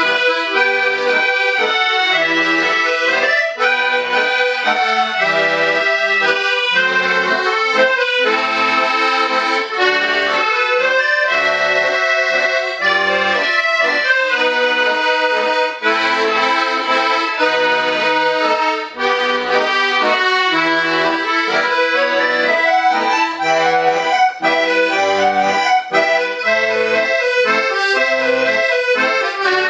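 Ensemble of accordions playing a folk-style piece together: a continuous melody over moving chords, with short bass notes marking the beat.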